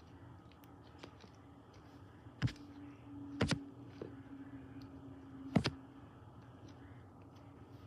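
A few sharp clicks, three of them louder and spaced about one and two seconds apart, over quiet room noise, with a faint low steady hum in the middle stretch.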